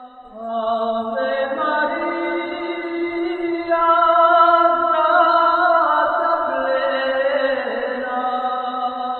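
Slow unaccompanied vocal music in the manner of a chant: several voices hold long notes in harmony and move in steps from chord to chord. It swells about half a second in and again near four seconds.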